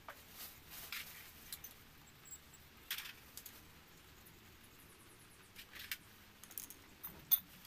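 A few scattered light metallic clinks and taps as hands handle the aluminium crankcase and steel studs of a Yamaha Mio scooter engine under assembly, the sharpest click near the end.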